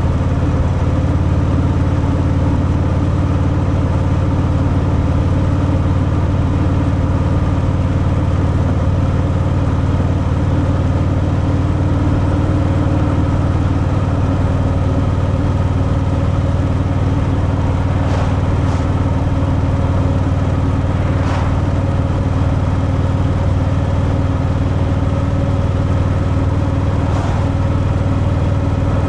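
Stock Harley-Davidson Fat Boy V-twin engine running steadily through its factory exhaust, with a deep, even note and a few brief clicks in the second half.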